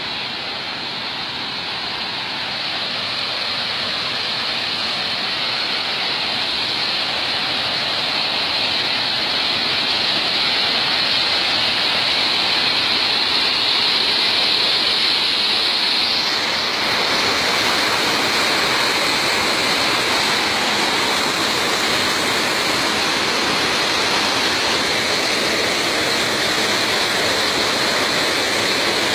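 Waterfall rushing: a steady hiss of falling water that grows louder over the first ten seconds and becomes brighter about halfway through.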